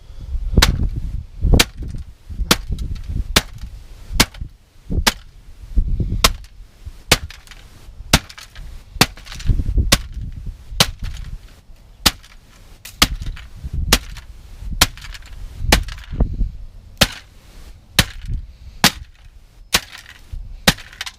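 A DVD player being smashed with repeated blows, about one sharp crack a second.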